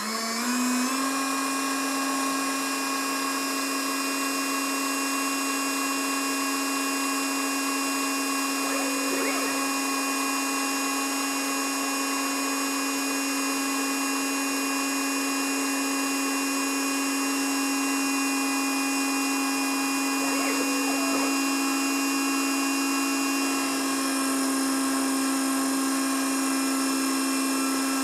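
Unimat mini CNC lathe running: a steady motor whine made of several tones, which climbs to speed in the first second and then holds, while the stepper motors feed the tool carriage along the workpiece. The tone shifts slightly near the end.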